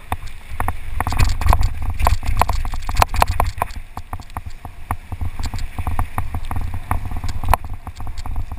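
Mountain bike descending a rough, rocky dirt trail: a dense, irregular clatter of the bike rattling and knocking as the tyres hit stones, over a steady rumble of wind buffeting the microphone.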